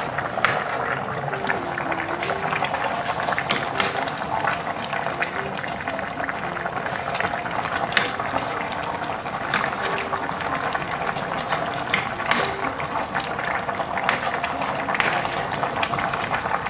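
Chicken adobo sauce boiling steadily in a pot while a plastic ladle stirs it, with a sharp click now and then; the sauce is being cooked down to thicken.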